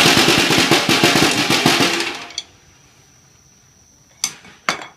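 A rapid drum roll that stops about two seconds in. After a quiet stretch, two sharp knocks come near the end.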